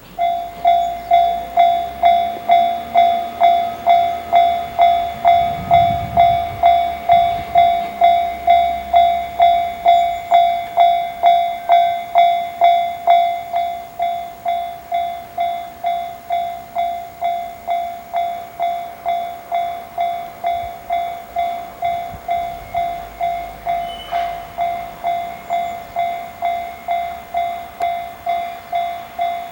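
Japanese level-crossing warning bell starts ringing suddenly, an electronic ding repeating just under twice a second, the signal that a train is approaching. It gets somewhat quieter about halfway through and keeps ringing.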